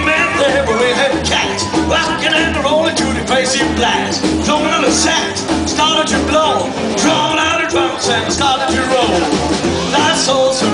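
Live rockabilly trio playing: upright double bass keeping a steady beat under acoustic rhythm guitar and electric guitar.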